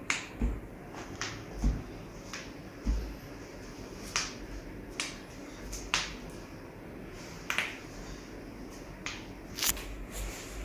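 About a dozen sharp, short clicks at irregular intervals over a faint, steady background.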